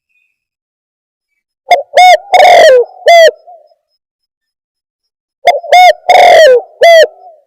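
Spotted dove (tekukur) cooing loudly. There are two calls, about two and five and a half seconds in. Each is a couple of short notes, a longer drawn coo that drops in pitch, and a short final note.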